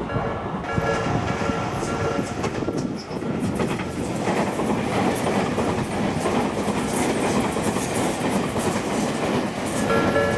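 Electric commuter train passing over a level crossing at speed, its wheels clattering over the rail joints in a steady rush of rail noise. The crossing's warning bell rings in repeated tones, heard most clearly in the first second and again near the end.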